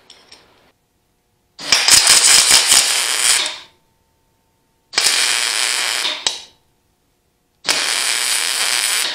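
MIG welder arc crackling in three bursts of one to two seconds each, with short pauses between: a nut being welded onto the stub of a broken bolt so that it can be backed out.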